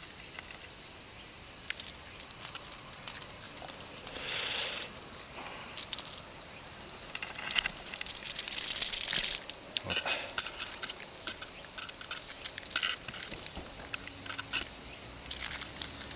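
Steady high-pitched chorus of insects, with a few faint scattered clicks and knocks.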